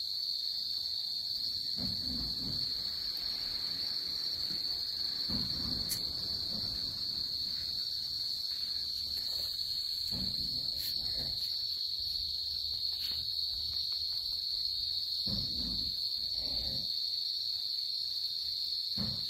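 Crickets singing, one continuous high-pitched trill, with a few soft low thumps here and there.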